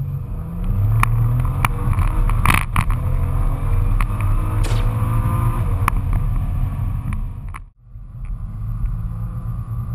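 Twin-turbo V6 of a tuned, roughly 630 hp Nissan GT-R R35, heard from inside the cabin while accelerating hard at full throttle, with several sharp cracks. The sound cuts out briefly near the end, then the engine comes back more quietly.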